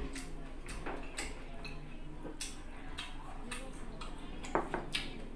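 A person eating close to the microphone: chewing with wet mouth clicks and smacks at irregular intervals, the loudest cluster about four and a half seconds in.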